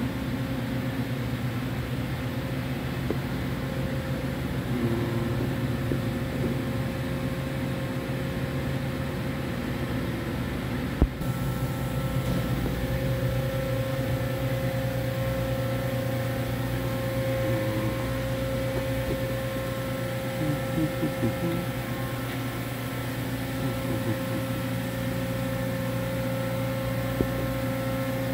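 Steady electrical and mechanical hum of a powered-up Toyoda FA1050 horizontal machining center, a few steady tones held over a whir. A single sharp click comes about eleven seconds in.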